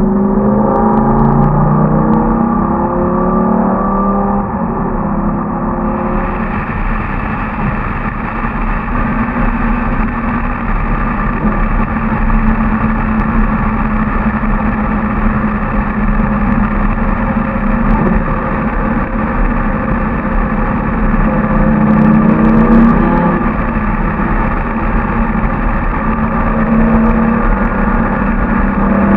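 Lamborghini Gallardo LP 570-4 Superleggera's V10 engine running under way, loud throughout. Its pitch rises and falls in the first few seconds, holds steady, then climbs again about three-quarters of the way through and near the end. For most of it the car is in a road tunnel.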